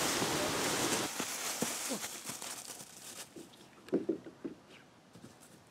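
Rustling of dry fallen leaves as bodies move on the ground, fading away over the first few seconds, with a few short faint sounds about four seconds in.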